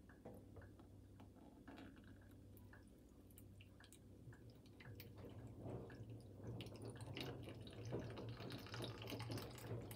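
A thin stream of tap water trickling and dripping into the small water tank of an iRobot Braava Jet robot mop, faint at first and getting louder over the second half as the tank fills.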